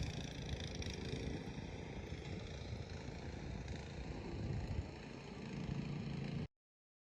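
Gas-engine rototiller running steadily, a mechanical drone that swells slightly now and then, until the audio cuts off abruptly near the end.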